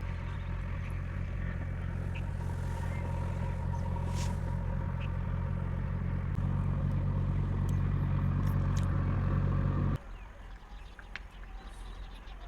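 A motor vehicle's engine running with a steady low hum that grows slightly louder, then stops abruptly about ten seconds in.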